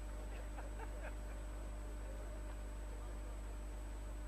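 Steady low hum and hiss of an old home-video recording, with faint distant voices in about the first second and a half.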